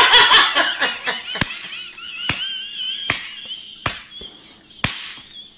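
A man's high-pitched screaming cry that drawls out into a long wavering wail, broken by about five sharp smacks of blows roughly a second apart.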